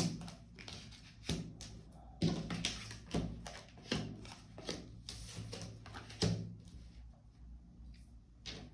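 Tarot cards being handled on a table: a run of soft taps and card flicks at irregular intervals, thinning out near the end.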